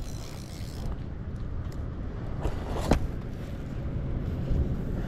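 Wind buffeting the microphone as an uneven low rumble, with one sharp tap or click about three seconds in.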